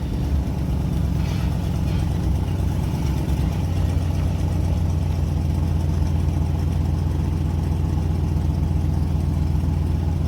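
A vehicle engine running steadily with a low, even hum, heard from the vehicle.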